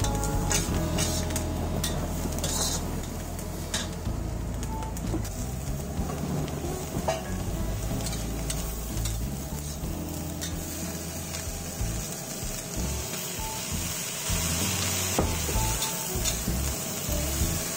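Prawns and vegetables sizzling in a hot wok as they are stir-fried with a metal spatula. The spatula clicks and scrapes against the pan, most often in the first few seconds, and the sizzle grows louder near the end.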